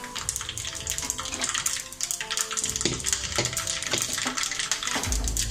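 Hot oil sizzling in a small pan, with mustard and cumin seeds crackling and popping in a constant fine spatter: a tadka (tempering) for dal. A low bump sounds near the end.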